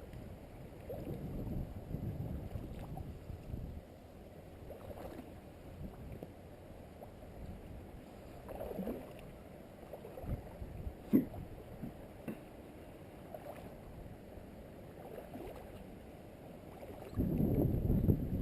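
Shallow stream water sloshing and splashing around the legs of someone wading over rocks, with a few short clicks and knocks. The sloshing grows louder near the end.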